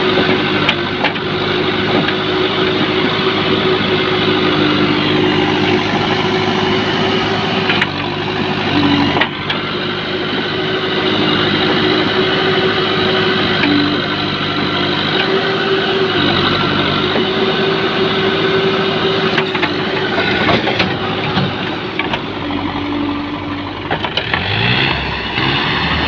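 Backhoe loader's diesel engine running steadily under working load, with a steady high tone running over the engine sound.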